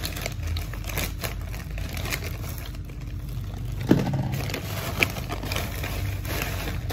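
Scissors snipping through a plastic courier mailer bag, then the plastic crinkling and rustling as the bag is pulled open. There are two sharp knocks, about four and five seconds in.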